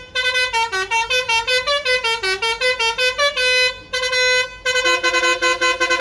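Basuri telolet bus horn, a set of electric air-horn trumpets, playing a fast tune of short stepping notes, then after a brief break rapid repeated blasts of a several-tone chord near the end.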